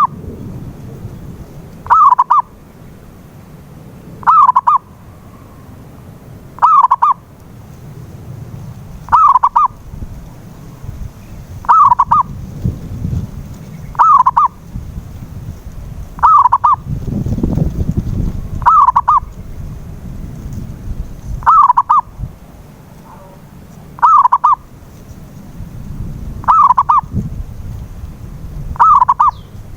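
Zebra dove (perkutut) song: a short cooing phrase of a few quick notes, repeated about every two and a half seconds. It is a lure recording meant to prompt a silent dove to sing. A low rumble sits underneath and swells briefly midway.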